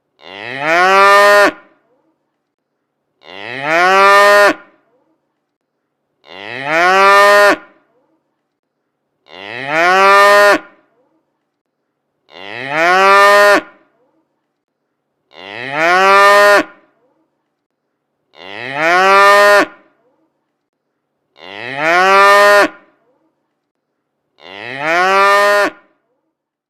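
A cow mooing: one call of about a second and a half that rises in pitch at the start and then holds. It repeats nine times at even intervals of about three seconds, with silence between, each call alike as if looped.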